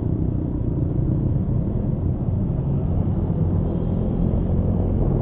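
Honda Scoopy scooter under way: a steady low rumble of its small engine and road noise heard from the rider's microphone.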